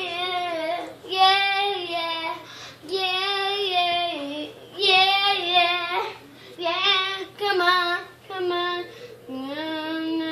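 A young girl singing without accompaniment, in a string of short sung phrases with brief breaks between them.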